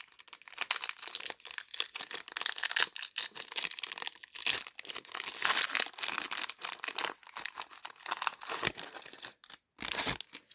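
Crinkling and tearing of a trading-card pack's foil wrapper being opened: irregular crackling throughout, with a short louder burst of crinkling near the end.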